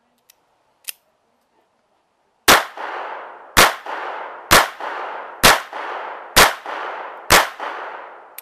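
Two faint clicks, then six gunshots from a pistol, about one a second, each followed by a long rolling echo.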